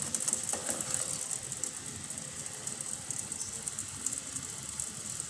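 Pot of water with rock sugar and tempayang seeds boiling on the stove, a steady fast crackle, a little louder in the first second.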